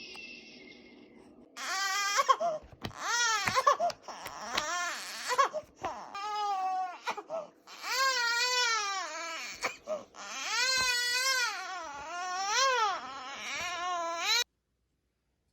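Two-month-old baby crying hard, a string of high-pitched wailing cries that rise and fall in pitch, broken by quick gasps for breath. The crying starts about a second and a half in and cuts off abruptly near the end.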